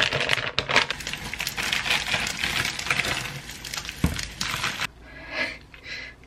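Crinkling and crackling of a plastic frozen-dumpling bag being handled, with a dull knock about four seconds in. Near the end, two short soft squelches as a sauce packet is squeezed.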